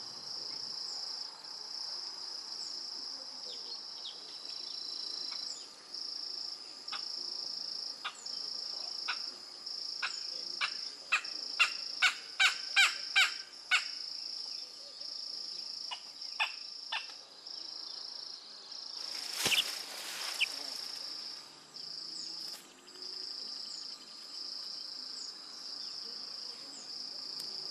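Crickets chirping in long high trills broken by short gaps. A quick run of sharp clicks comes between about ten and fourteen seconds in, and a short noisy burst about twenty seconds in.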